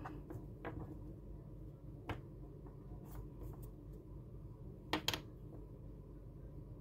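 Faint handling of small drone electronics on a tabletop: a few scattered light clicks and taps, the loudest a quick pair about five seconds in, over a low steady room hum.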